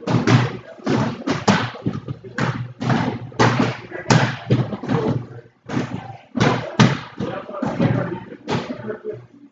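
Busy gym din: indistinct voices talking, mixed with dull thuds.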